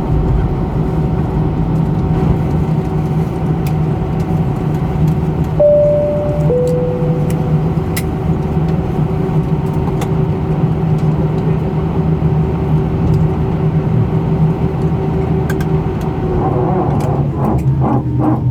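Airbus A319 cabin hum at the stand, with a two-tone high-low cabin chime about five seconds in and a few sharp clicks afterwards. Near the end the hum's pitch drops.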